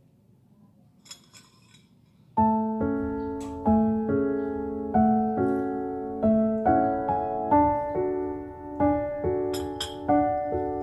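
A few faint clicks over a quiet background, then about two seconds in, background piano music starts: a slow melody of struck notes and chords, each note ringing and fading.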